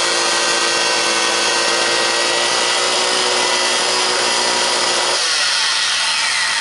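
Craftsman table saw running with a steady high whine over its motor noise, part of the sound dropping out about five seconds in and the whine falling in pitch as the saw winds down near the end.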